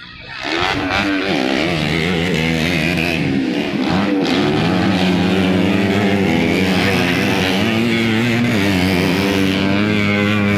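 Motocross bike engines running at high revs, starting sharply about half a second in and holding loud, their pitch wavering up and down.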